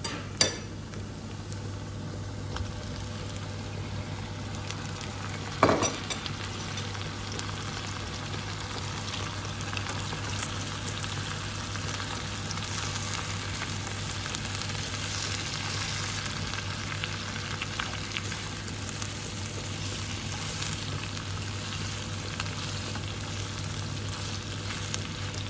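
Onion frying in a pan, a steady sizzle that grows slightly stronger in the second half. Two short knocks, one just after the start and one about six seconds in.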